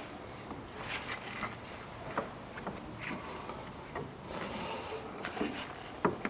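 Hand work on a stuck rubber power steering hose at the plastic reservoir of a Toyota Camry: scattered rustles and small clicks as the hose is twisted and worked off its nipple, with a sharper click about six seconds in.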